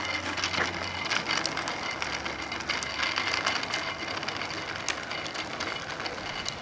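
A child's small bicycle with training wheels rolling over asphalt: a continuous rattling clatter with many irregular clicks.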